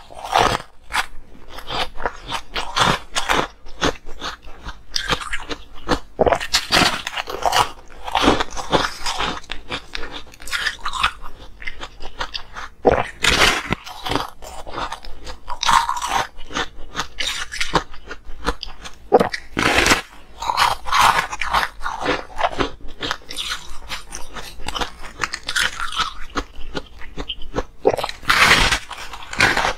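Close-miked biting and chewing of a block of coloured frozen ice: many sharp, irregular crunches as chunks are bitten off and crushed between the teeth.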